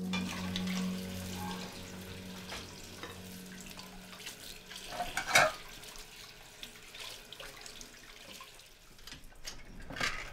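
Tap water running into a kitchen sink during dishwashing, with scattered clinks and a couple of sharper knocks, the loudest about five seconds in. A steady sustained tone fades out over the first few seconds.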